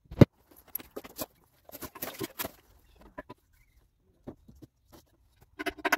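Sped-up (time-lapse) sounds of stone veneer panels being fitted to a wall. A sharp knock just after the start is followed by scattered quick clicks and taps, a dense run of them about two seconds in, and a short squeaky pitched burst near the end.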